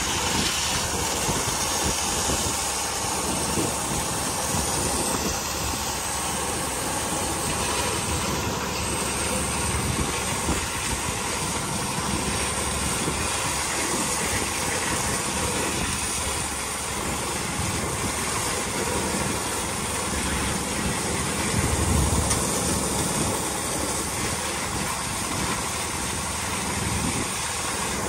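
Sponge-fishing boat's engine running steadily.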